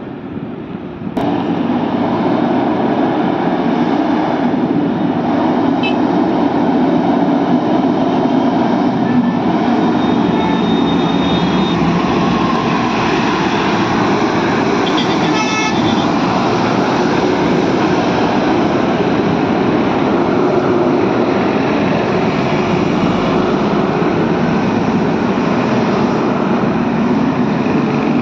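Heavy trucks passing close by: a loud, steady mix of diesel engine and tyre noise that comes in suddenly about a second in. A vehicle horn sounds briefly about halfway through.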